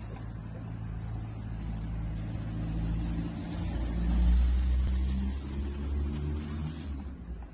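Motor vehicle engine running with a steady low hum, growing louder to a peak about four seconds in and then easing off.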